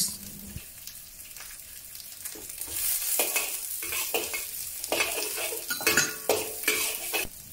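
Carrot and shiitake mushroom slices sizzling in hot oil in a wok, with a metal wok spatula scraping and clinking against the pan as they are stir-fried. The stirring and sizzling get louder about three seconds in.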